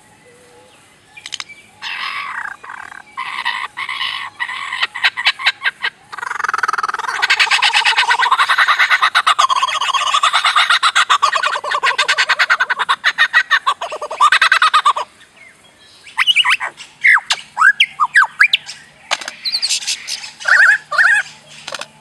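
A lyrebird mimicking electronic laser-gun sounds. It gives a run of rapid clicks and short bursts, then a long dense stuttering rattle, then a string of quick rising 'pew' sweeps.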